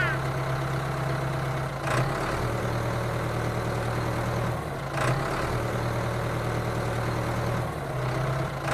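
Mini tractor's motor running with a steady low hum that drops out briefly three times, about 2, 5 and 8 seconds in, with a short knock at the first two drops.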